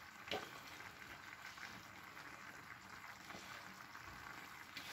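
Clay tagine of chicken and vegetables simmering on the stove, a faint steady bubbling and sizzling, with one light knock just after the start.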